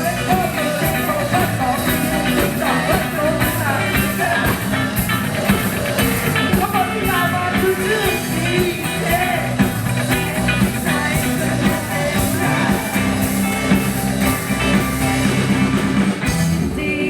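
Rock music with a singing voice over a steady beat and bass line.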